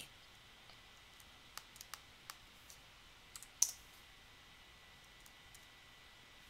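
Computer mouse and keyboard clicks: about a dozen short, sharp clicks, mostly in the first four seconds, with the loudest a little past three and a half seconds in. They are heard over faint steady hiss.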